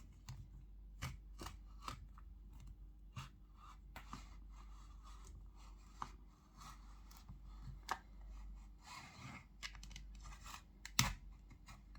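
A plastic pry card scraping and clicking along the edge of a phone's plastic back cover, cutting through the adhesive in short irregular strokes. A louder knock comes near the end.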